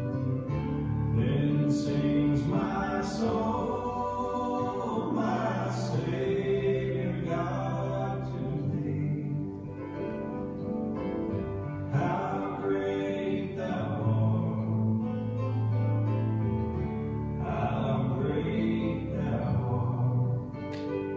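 A hymn sung by voices over instrumental accompaniment, in long held phrases.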